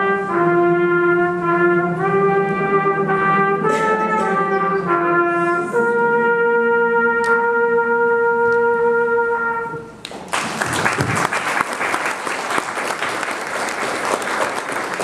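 A group of harmonicas playing the end of a tune in unison, finishing on one long held note; about ten seconds in the music stops and the audience applauds.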